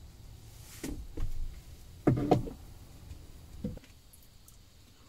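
A few soft knocks and handling noises as someone moves about and settles down inside a small van, with the loudest, briefly ringing knock around two seconds in.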